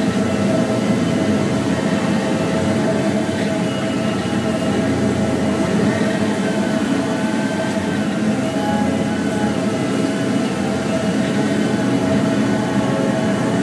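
Volvo 3329FM forestry machine's diesel engine and hydraulics running steadily while it works its Satco 630 felling head, with a faint whine that rises and falls in pitch.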